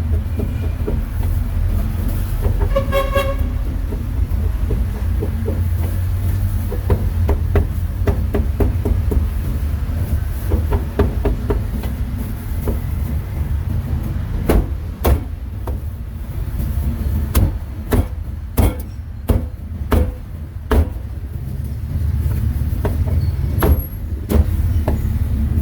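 Steady street-traffic rumble with a short vehicle horn toot about three seconds in. From about halfway there is a run of about ten sharp, uneven knocks, a cleaver chopping pork on a chopping block.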